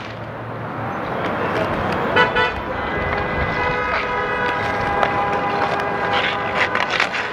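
A vehicle horn sounding one long, steady blast from street traffic, starting about three seconds in. Under it there is steady traffic and rink noise with a few sharp clacks.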